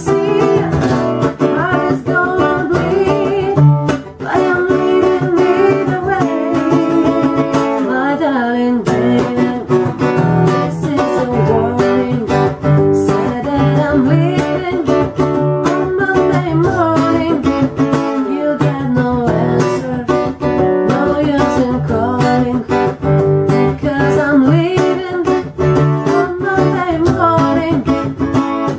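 Acoustic guitar strummed in steady chords, with a woman singing along.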